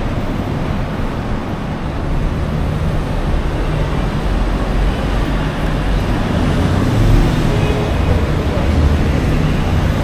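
Urban road traffic: a steady mix of passing vehicles, with a low engine rumble that swells in the second half as a larger vehicle goes by.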